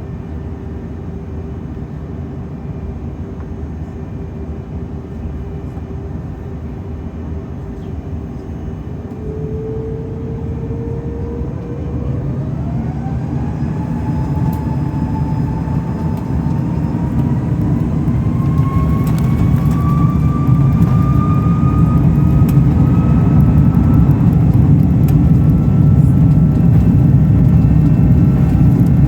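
Rolls-Royce Trent 700 turbofans of an Airbus A330 spooling up for takeoff. A steady engine hum starts to climb about nine seconds in, into a whine that keeps rising for some fifteen seconds, while the low rumble grows steadily louder.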